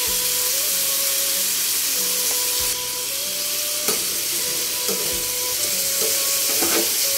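Potatoes frying in oil in a pan, sizzling steadily, with a few knocks of the spatula against the pan as they are stirred, the first about four seconds in.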